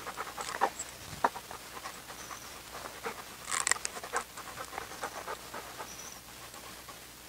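Fila Brasileiro dog panting while being roused on a leash, with scattered short scuffs and clicks as she moves around, a louder cluster of them about three and a half seconds in.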